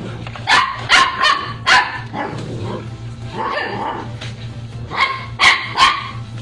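A dog barking: a quick run of about four sharp barks, a quieter one in the middle, then three more near the end.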